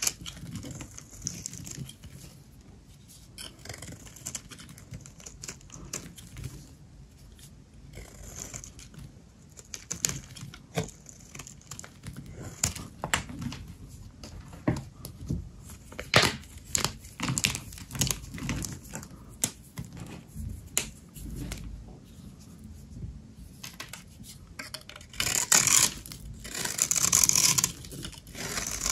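Dry bar soap being cut close up: a string of crisp crackles and snaps, then a few seconds of rough scraping near the end.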